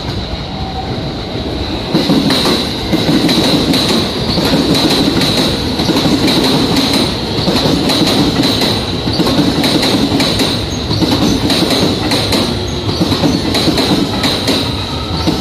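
Electric commuter train running past the platform at speed, its wheels clattering over rail joints with a steady high-pitched squeal. It grows louder about two seconds in as the cars come alongside.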